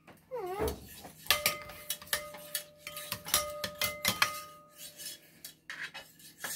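Metal whisk clinking and scraping against a stainless steel saucepan, a run of sharp clinks over a few seconds, each leaving a ringing tone.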